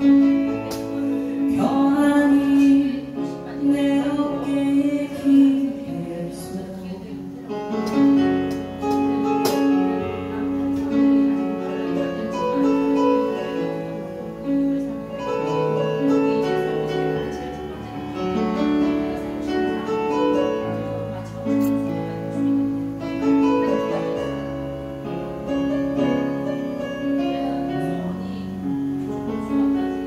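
A woman singing a slow song into a microphone while accompanying herself on a Yamaha electric keyboard, held chords under her voice.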